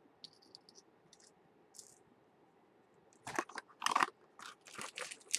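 Crinkly packaging being handled: a few faint clicks, then from about three seconds in, loud irregular crackling and crinkling.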